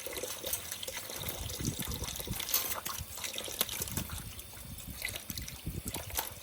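Water trickling and splashing while a caique parrot bathes, with many short irregular splashes and flicks over the steady running water.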